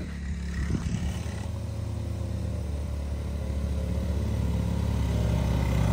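1985 Honda ATC70 three-wheeler's small single-cylinder four-stroke engine running at a steady pitch, getting gradually louder.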